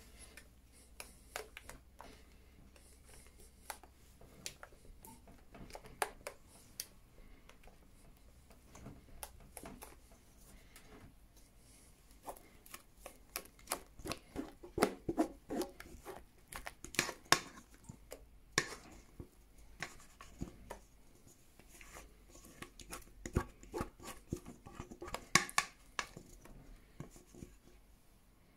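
Silicone spatula scraping and tapping against stainless steel mixing bowls as vanilla cream mixture is stirred and whipped cream is scraped from one bowl into another: a scatter of short scrapes and light knocks, busier in the second half.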